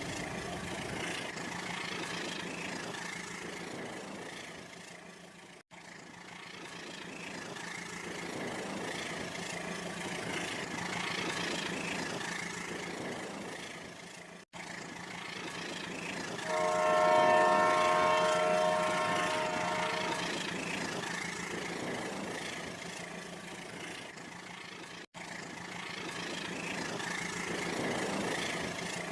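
A train running, with a continuous rumbling noise that cuts out abruptly three times. About two thirds of the way through, the train's horn sounds for about three and a half seconds, louder than the running noise.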